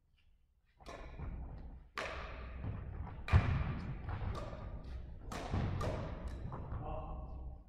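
Badminton rally: a string of sharp racket hits on the shuttlecock, roughly a second apart, each ringing on in the echoing sports hall. Mixed in are the thuds of the players' feet on the wooden floor, the loudest about three seconds in.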